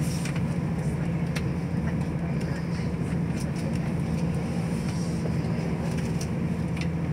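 Inside a moving diesel passenger train carriage: a steady running rumble and drone of the train on the rails, with a few light clicks scattered through.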